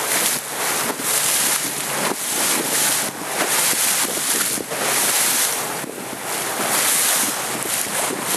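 Wind buffeting the microphone in gusts over the rush and slap of choppy sea water around a moving boat.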